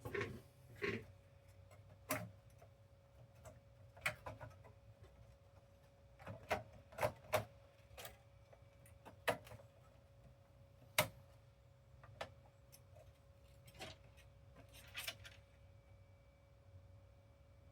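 Scattered light clicks and taps, a dozen or so at irregular intervals, as PS5 console parts are handled and fitted back together during reassembly, over a faint steady tone.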